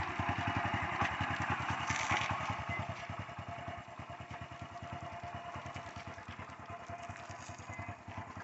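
Motorcycle engine running at idle, a steady quick pulse of firing strokes; it gets quieter about three to four seconds in.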